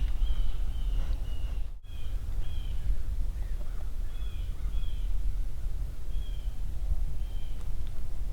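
A bird giving short, high, down-slurred calls, repeated in a loose series, over a steady low rumble of wind on the microphone.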